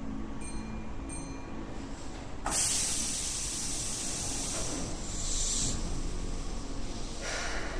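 Keihan electric train releasing compressed air: a loud hiss starts suddenly about two and a half seconds in and lasts about three seconds, and a shorter hiss follows near the end. Two brief high-pitched tones sound just before the first hiss.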